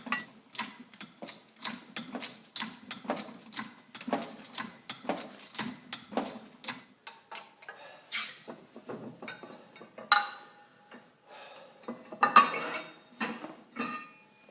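Steel strap-iron brackets clinking and knocking against metal as they are handled and set up, with a quick run of knocks about two a second in the first half, then two louder ringing clanks near the end.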